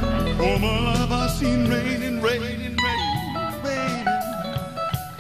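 Live rock band playing: electric guitars, bass and drum kit, with a lead melody that wavers and slides in pitch.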